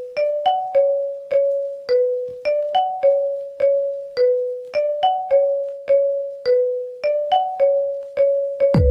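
Ringtone melody of short, bell-like keyboard notes, about three a second, in a simple phrase that circles one note and repeats every couple of seconds. Near the end a deep bass note with falling pitch comes in.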